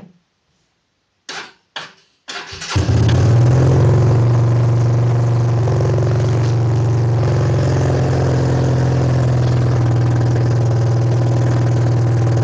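Small Honda motorcycle engine starting: two short cranks, then it catches about two seconds in and settles into a steady fast idle. It is running on choke with the carburettor's idle still unset.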